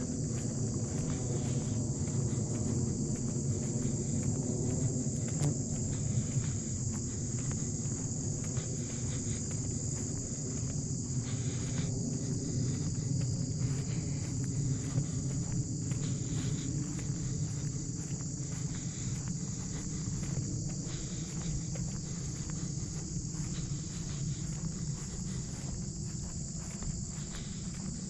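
A steady high-pitched chorus of insects trilling without a break, over a louder low, steady rumble.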